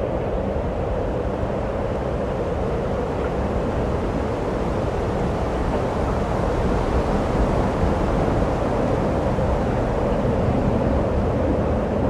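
Strong wind blowing: a constant rushing noise that holds steady without gusts or breaks.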